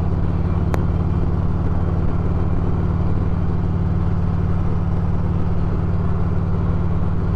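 Harley-Davidson touring motorcycle's V-twin engine running steadily at cruising speed, heard from the rider's seat with a steady rush of wind and road noise.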